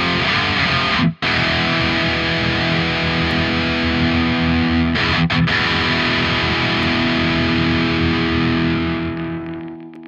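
Distorted electric guitar (Donner Hush X played through a Mooer Prime P2 multi-effects on a djent preset). It is cut short about a second in, then a chord rings on, is struck again a little after five seconds, and fades out near the end.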